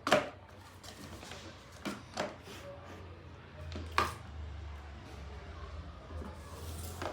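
A few scattered sharp knocks and clacks, about four in all, the loudest about four seconds in, from parts of a ride-on toy car being handled and fitted during assembly, over a low steady hum.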